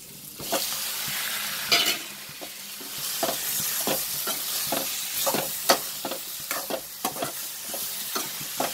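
Cut tomatoes tipped into a metal kadai of sliced onions frying in oil, then sizzling while a spatula stirs and scrapes the pan in quick, repeated strokes.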